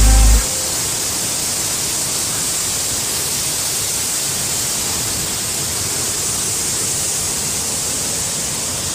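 Swollen floodwater rushing in a steady torrent, a hissing noise without change. A music track cuts off about half a second in.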